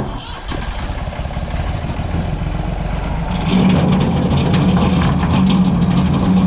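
Backhoe engine running, growing louder about three and a half seconds in, with scattered knocks over it.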